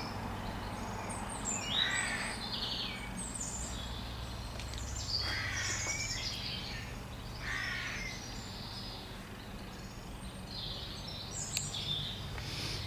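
A crow cawing: several harsh calls, each under a second, spaced irregularly a second or more apart over a low steady background hum.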